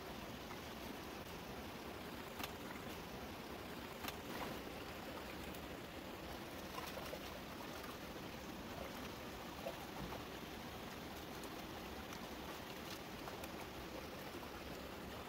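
Shallow, rocky mountain stream running steadily over stones, with a few short splashes as hands work in the water.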